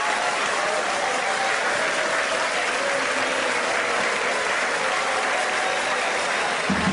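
Large audience applauding steadily in a hall after a punchline, with faint music tones under the clapping in the first half.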